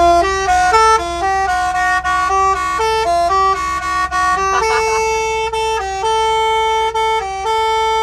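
Truck's multi-trumpet air horn, driven by a programmable basuri-style horn module, playing a melody in paired notes: quick steps up and down at first, then longer held notes from about halfway, over a steady low hum.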